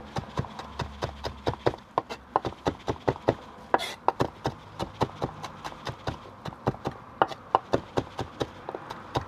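Kitchen knife chopping on a cutting board, steady rapid strokes at about three to four a second, mincing an ingredient finely.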